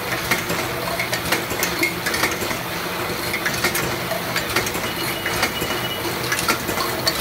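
Automatic ointment-tube cartoning machine running: a steady mechanical hum under frequent, irregular metallic clicks and clinks, several a second.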